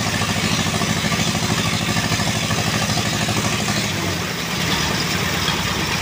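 Engine of a concrete mixer and hoist running steadily with a fast, even thump; its note shifts slightly about four seconds in.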